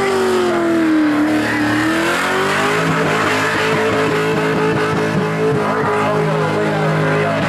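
V8 Holden Commodore burnout car's engine held at high revs. The pitch sags about a second in, then climbs back and holds steady, over the squeal and hiss of spinning rear tyres.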